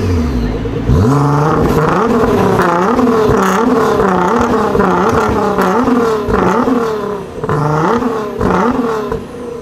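Car engine with a modified exhaust revved hard in quick repeated blips, about one and a half a second, each rising and falling in pitch, with a few sharp pops between them.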